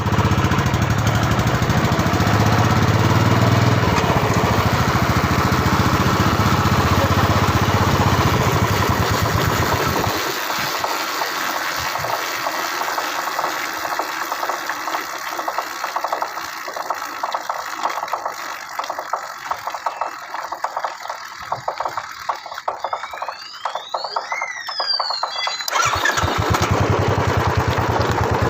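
Royal Enfield Classic 350 BS6's single-cylinder engine running with a steady low thump. About ten seconds in, the thump drops away and an irregular ticking or rubbing is heard, with a few high rising-and-falling squeals, taken by the owner for an abnormal noise from the tyre. Near the end the engine thump returns.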